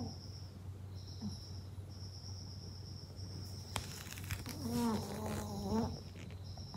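A sleeping Maltese dog breathing, with a faint high whistle that comes and goes about once a second, and a short low whine with a steady pitch about five seconds in.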